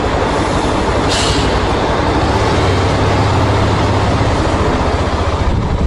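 Motorcycle engine idling steadily with a low, even pulsing, heard close from the rider's seat. A brief hiss comes about a second in.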